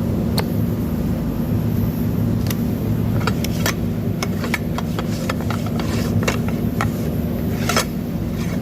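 Sharp, irregular metal clicks of cast iron piston rings being worked over the piston and snapping into their grooves, a dozen or so, mostly in the middle and later part, over a steady low mechanical hum like a nearby engine running.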